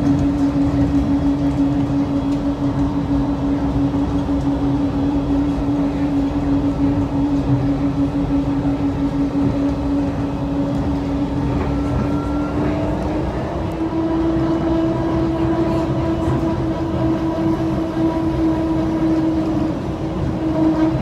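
Interior running noise of a DFW Skylink airport people-mover train in motion: a steady electric drive whine over a low rumble. The whine rises a little in pitch about halfway through and holds there.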